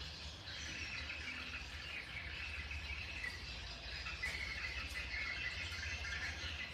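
Birds chirping and insects trilling outdoors, faint, over a low steady rumble.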